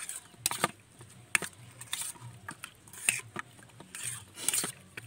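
A spoon mixing mutton pieces with yogurt and spice marinade in a stainless steel bowl: irregular clinks and scrapes against the bowl.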